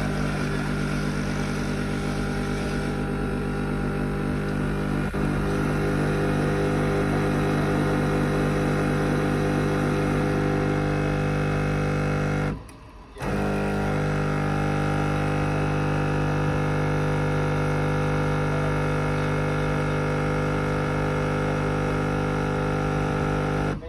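Cino XX bean-to-cup coffee machine running a brew cycle: a steady electric motor and pump hum that breaks off for under a second about halfway, then runs again until it stops at the end.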